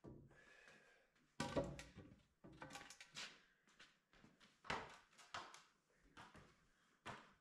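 Faint, scattered wooden knocks and thuds of framing lumber being handled and set in place, the loudest about a second and a half in.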